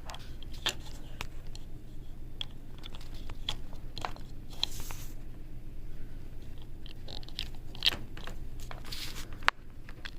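Small clicks and scrapes of a USB Ethernet adapter being handled and fitted into a computer port, with a sharper click near the end, over a steady low hum.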